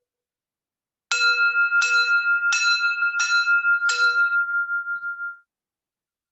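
A high-pitched bell struck five times in quick succession, roughly once every 0.7 seconds. The strikes build one ringing tone that wavers as it rings and then cuts off. It marks the close of the sound-healing meditation.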